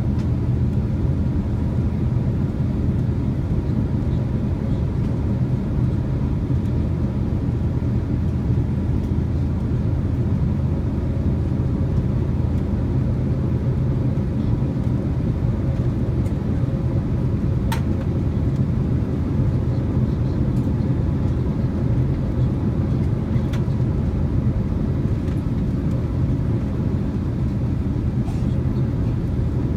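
Steady low drone of an Airbus airliner's cabin in flight: engine and airflow rumble.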